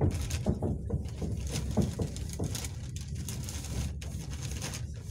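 Passenger train running, heard from inside the carriage: a steady low rumble of wheels on rail, with irregular sharp clacks as the wheels cross rail joints and points.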